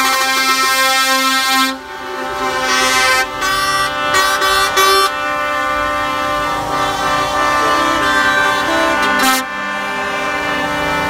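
Truck air horns blowing, several at once at different pitches, over passing lorries' engines. Long blasts break off about two seconds in, a string of short toots follows around four seconds in, then long held blasts that change pitch.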